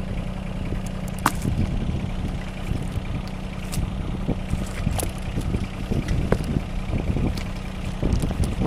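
A vehicle engine running steadily at low speed as it creeps forward, with a steady low hum and scattered sharp clicks and knocks.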